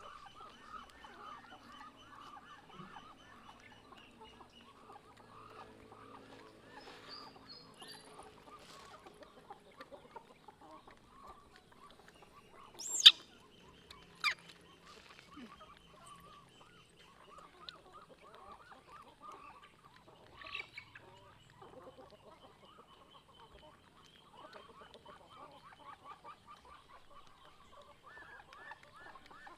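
Farmyard fowl calling on and off throughout, over a faint steady high tone. Two sharp, high squeals stand out about thirteen and fourteen seconds in.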